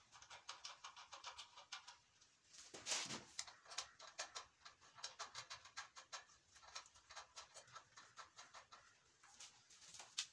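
Faint, irregular light clicks and taps from a homemade table saw fence being handled and slid along the saw table's edge rail, a few per second, with a louder cluster about three seconds in.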